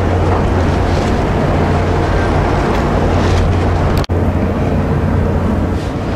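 Wind buffeting the microphone out on an open deck, over a steady low hum. The sound drops out briefly about four seconds in.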